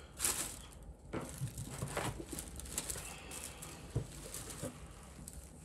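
Tissue-paper wrapping rustling and crinkling in short irregular bursts as it is folded and pulled back by hand, with one light knock about four seconds in.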